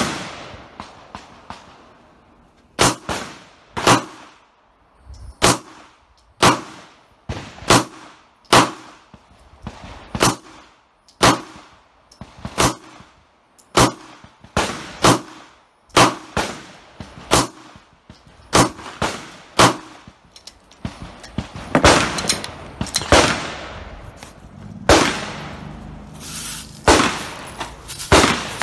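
Glock 17 9mm pistol fired one shot at a time, about one shot a second, each sharp crack followed by a brief ring-out. Over the last several seconds the reports come closer together with more noise between them.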